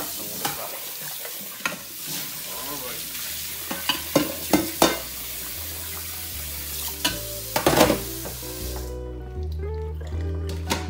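Kitchen tap running into a stainless steel sink, with clatters and knocks as a metal pot and a plastic colander are handled under it. Background music with bass notes comes in, and about nine seconds in the water noise stops and the music is left.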